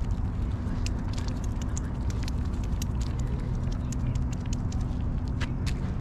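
Dry grass crackling close by in many quick, irregular sharp clicks, over a steady low rumble.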